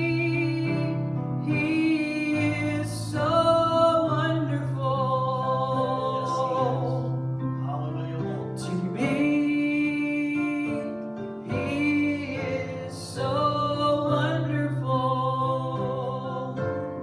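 Worship song sung with long held notes over keyboard accompaniment.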